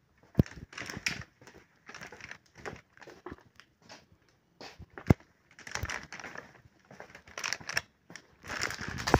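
Irregular crinkling and rustling with sharp clicks about half a second in and again about five seconds in.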